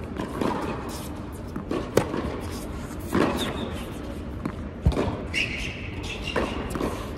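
Tennis rally on an indoor hard court: racquets strike the ball with sharp pops every two to three seconds, with lighter knocks of the ball bouncing between. A brief high squeal comes about five and a half seconds in.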